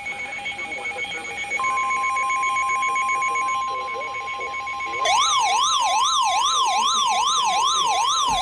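A weather radio's steady warning alarm tone, a single pitch near 1 kHz, comes on about one and a half seconds in; it signals that a warning is about to be broadcast. About five seconds in a second alert joins it and gets louder: a siren-like tone wailing rapidly up and down, a little over twice a second.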